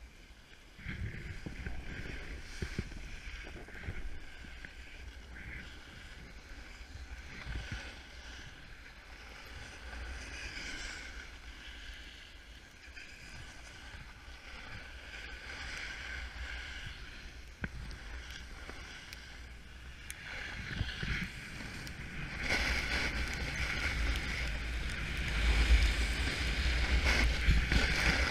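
A snowboard sliding and carving over snow, a steady rushing scrape, with wind buffeting the microphone at low pitch; both get louder about three-quarters of the way through.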